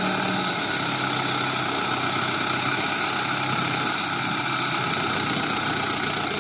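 Mahindra tractor's diesel engine running steadily as its front loader bucket pushes a heap of soil.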